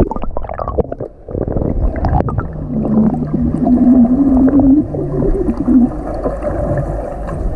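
Muffled underwater pool noise picked up by a submerged camera: gurgling and sloshing water with soft knocks from a swimmer's kicking and strokes. From about two and a half seconds in, for some three seconds, a low wavering hum runs under it, from the swimmer blowing bubbles underwater.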